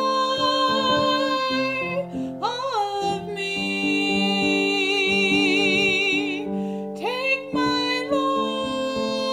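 A singer holding long notes over steady piano chords, sliding up into a new note about two seconds in and again near the seven-second mark, with vibrato on the longest held note.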